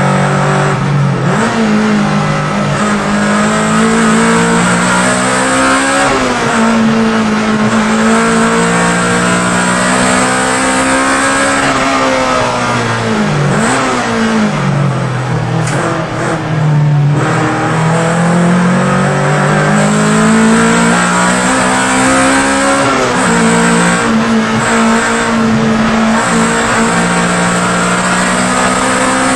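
Honda EK Civic race car's engine heard from inside the cabin, running hard at racing revs. The pitch climbs and drops back several times with gear changes, falls away low about halfway through, then climbs steadily again, over steady road and wind noise.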